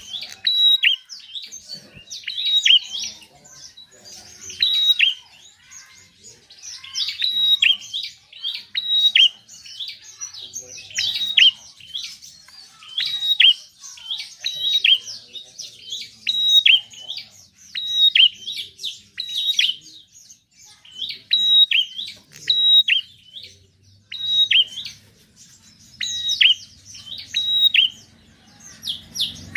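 Prinia singing: short phrases of sharp, high chirping notes, repeated every second or two.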